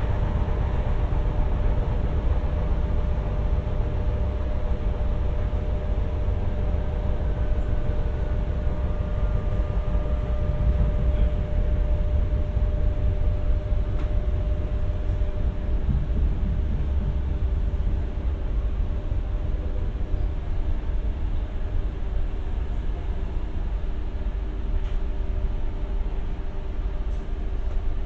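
Renfe class 447 electric multiple unit running, heard from on board: a steady, heavy low rumble of wheels on track with a few constant hum tones from its electrics.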